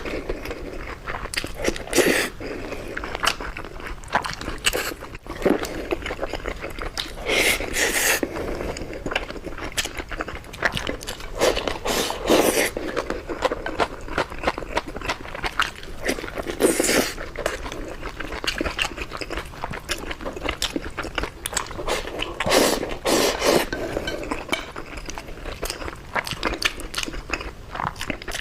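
Close-miked eating sounds of spicy Korean food: continuous wet chewing and mouth noises with a louder burst every few seconds.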